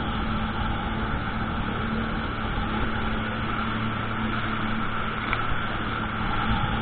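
Jet ski engine running steadily at speed, a constant droning hum with the rush of water and wind underneath.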